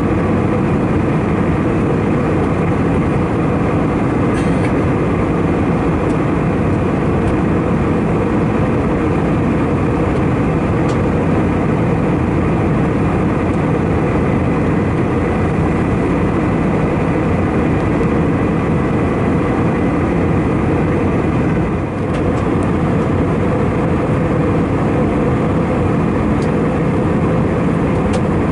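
Steady cabin noise of an Airbus A319-111 in flight, heard from a passenger seat: the hum of its CFM56 engines and the rush of air past the fuselage, with a faint steady whine on top. The level dips briefly about 22 seconds in.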